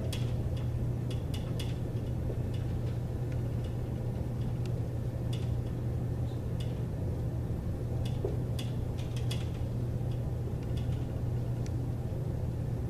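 Dry-erase marker writing on a whiteboard: short, irregular taps and squeaks of the pen strokes, over a steady low hum.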